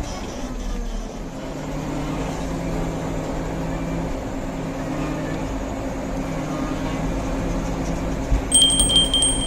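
Motor grader's diesel engine running steadily under work. Near the end, a high steady tone comes in along with a quick run of clicks.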